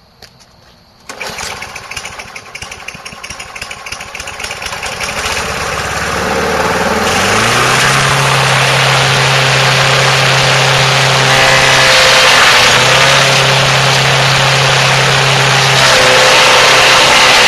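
Craftsman gasoline push mower's engine starts about a second in, running rough at first, then speeds up around six to seven seconds and runs loud and steady under its blade, with the engine note dipping briefly twice as it takes load.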